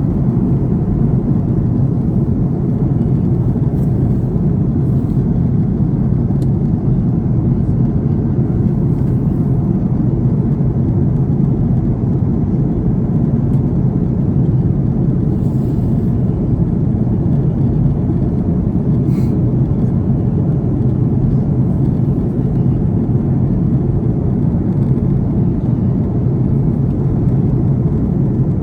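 Steady low rumble of an Airbus A330 airliner heard from inside the passenger cabin: engine and airflow noise, unchanging throughout.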